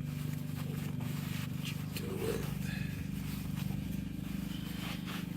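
A steady low mechanical hum with a fast flutter, with a few faint rustles and light scrapes over it.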